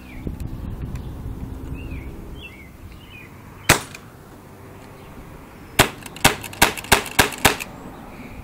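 CO2-powered HK USP airsoft pistol firing sharp shots: one single shot, then about two seconds later a quick string of six shots, roughly three a second.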